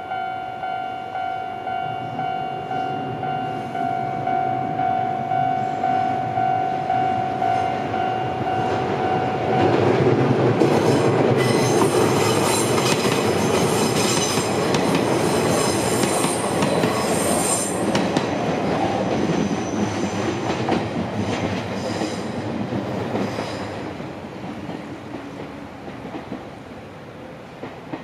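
A Japanese level-crossing alarm rings with a steady, regularly pulsing electronic tone. About ten seconds in, an Izuhakone Railway Sunzu Line electric train passes over the crossing, its wheels clattering on the rails with high squealing. The train noise then fades away near the end.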